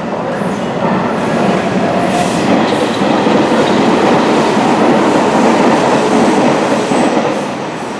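Hanshin Railway electric train running along the track. The noise builds to a peak in the middle and eases off near the end.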